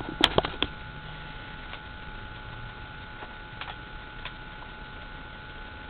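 A quick cluster of sharp clicks in the first second, then a few faint scattered ticks, over a steady faint hiss with a thin high hum.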